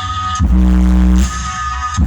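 Bass-heavy electronic music played loud through a car sound system, with deep held bass notes that break off twice.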